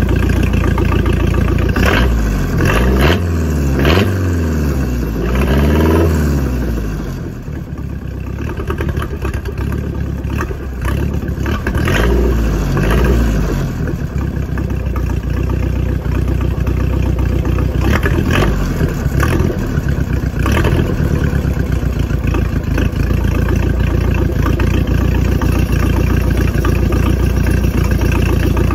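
MerCruiser 140 hp inline four-cylinder marine engine running on a test stand just after its break-in, its throttle opened and closed several times so it revs up and falls back again and again, then runs steadily through the last third.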